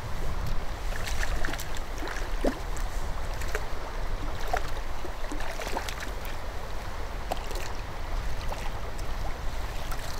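A hooked trout splashing at the surface as it is drawn in to a landing net, with scattered small water splashes over a steady low wind rumble on the microphone.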